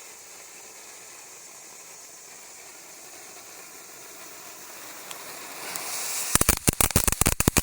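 Consumer firework fountain spraying with a steady hiss that slowly grows louder. About six seconds in it breaks into a loud, rapid string of cracks.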